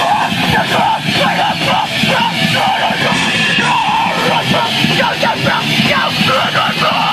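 Deathgrind band playing live, with yelled vocals over distorted guitar and drums. Rough, distorted sound from a camcorder mic covered with a bandage.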